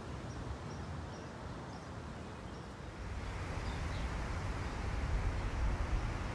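Wind rustling foliage and buffeting the microphone, the low rumble growing stronger about halfway through. Faint high chirps repeat about three times a second in the first half.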